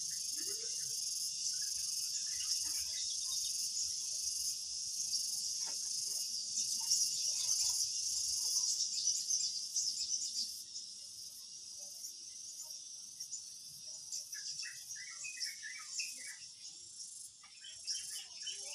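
Insect chorus: a steady, high-pitched chirring that drops a little in loudness about halfway through.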